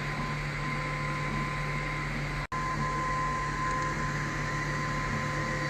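Steady mechanical hum with a constant whine, cut off for an instant about halfway through and then resuming.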